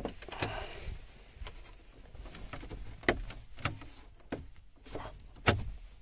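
Plastic trim-removal tool prying at the center console's trim bezel on a 2012 Jaguar XJ: scattered sharp clicks and snaps as the friction clips give way, with a short scrape about half a second in. The loudest snaps come about 3 seconds in and near the end.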